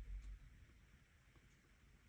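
A soft, low thump right at the start that dies away within half a second, then near silence with a few faint ticks.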